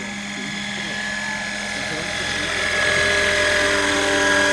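Radio-controlled scale model helicopter flying close past, a steady whine of its rotor and drive. The whine grows louder from about halfway through, with more tones joining, and is loudest near the end.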